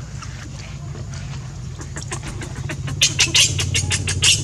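Baby macaque giving rapid, short high squeals that grow louder from about two seconds in, as its mother pushes it off her chest, over a steady low hum.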